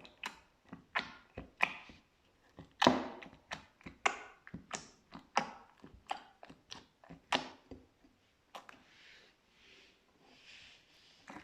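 Slime being pressed and worked by hand, giving a run of sharp sticky clicks and pops at about two a second. Near the end they give way to softer, hissing squishes.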